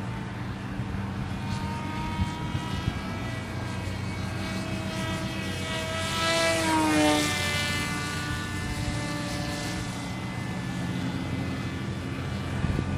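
Homemade radio-controlled F-22 Raptor model plane flying overhead, its motor and propeller whining. The whine swells and drops in pitch as the plane passes close about six to seven seconds in, then fades as it flies away.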